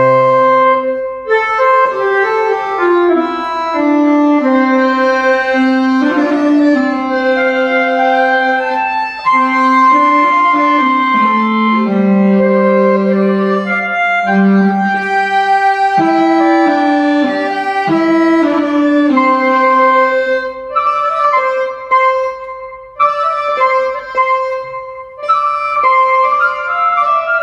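Small ensemble of clarinet-like vertical woodwinds playing a melody together in several parts, with held notes and stepwise changes of pitch.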